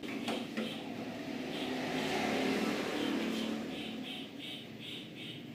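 A small handheld power tool's motor running up and dying away over about two seconds, after two sharp clicks. A faint regular ticking, about three a second, follows.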